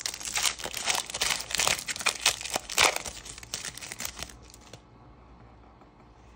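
Foil wrapper of a Panini Donruss Optic trading-card pack being torn open and crinkled by hand: dense, crackly rustling that stops about four and a half seconds in.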